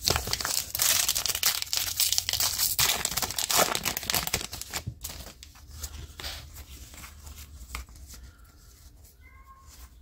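A baseball card pack's wrapper crinkling and tearing for the first few seconds, then quieter soft clicks and slides of cards being thumbed through a stack in the hands.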